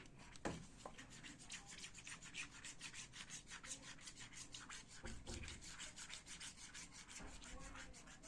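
Little stick stirring glue and Ariel detergent into slime: quick, even rubbing strokes, about six a second, faint.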